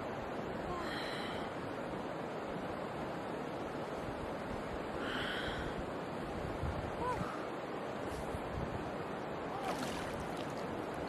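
Shallow river water sloshing and splashing around a wader's hands and legs as she feels along the riverbed, over a steady rushing noise, with one sharper splash near the end.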